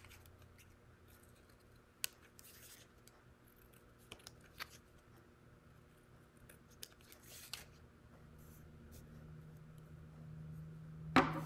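Scissors snipping construction paper: a few separate sharp snips several seconds apart, with brief paper rustling, as small white circles are cut out.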